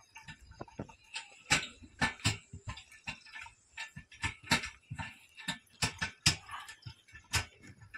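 Wooden bullock cart drawn by a pair of bulls, rolling along a dirt track: uneven sharp knocks and clicks from the cart's wooden frame, about three a second.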